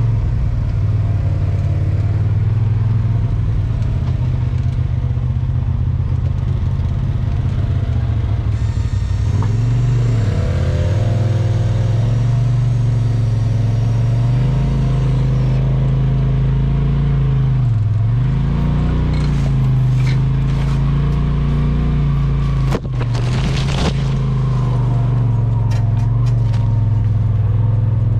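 Polaris RZR Pro XP4 side-by-side engine running under way on a trail. The engine note drops and picks up again twice as the throttle is eased and reapplied. Scattered knocks and rattles come in during the last third.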